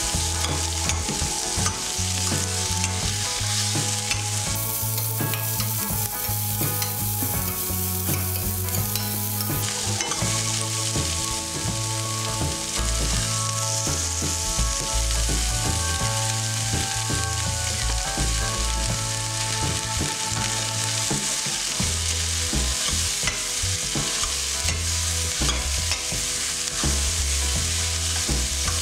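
Sliced carrots, capsicum, onion and mushrooms sizzling in oil in a stainless steel kadai, stirred and tossed with a metal ladle that clicks and scrapes against the pan.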